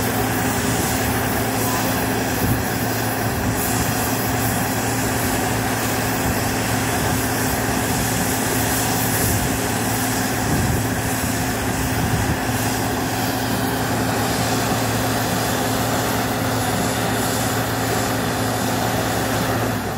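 Tube well machinery running steadily: an even engine or motor hum under a wide rushing hiss.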